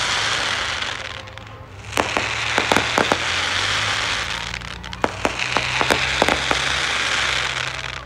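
Aerial fireworks display: shells going off with many sharp bangs over a dense crackling hiss. It comes in waves, with short lulls about a second and a half in and again about five seconds in.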